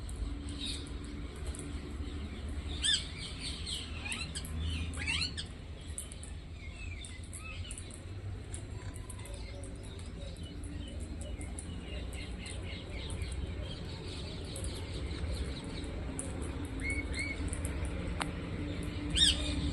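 Parrot chirping and squawking: a steady string of short calls, with two louder calls about three seconds in and near the end, over a low steady rumble.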